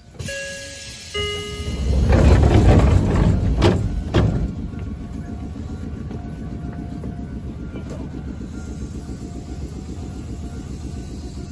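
A two-note descending chime, then a loud rush of air with two sharp knocks as the Choshi Electric Railway train's doors open at a station stop, followed by the steady hum of the stopped train.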